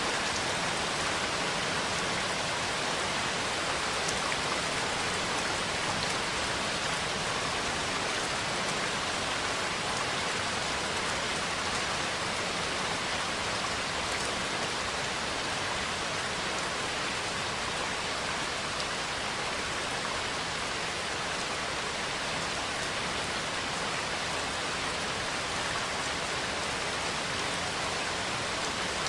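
Steady heavy rain falling, an even hiss with no thunder clap standing out.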